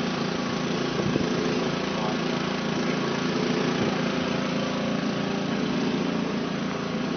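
Small engine-driven water pumps running steadily at a constant speed, pumping floodwater into an AquaDam to fill it.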